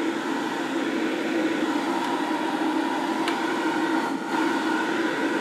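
Dremel booster fan, a plastic inline duct fan, running at full speed with its ports open: a steady rush of air over an even motor hum, which sounds pretty powerful.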